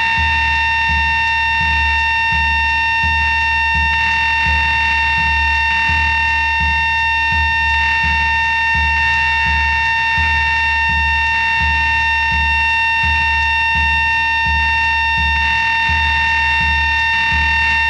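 Live experimental music: a steady high-pitched drone held throughout over a low, regularly pulsing throb.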